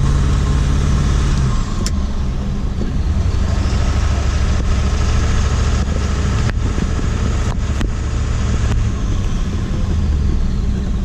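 Ford Super Duty's 7.3 Powerstroke turbo-diesel V8 running steadily. The engine note drops about one and a half seconds in, and a few sharp clicks sound over it.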